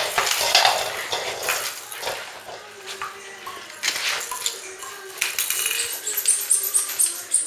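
Czechoslovakian wolfdog puppies at play with toys on a tiled floor: sharp knocks and clattering of plastic toys and claws on the tiles. Near the end comes a fast run of very high squeaks, several a second.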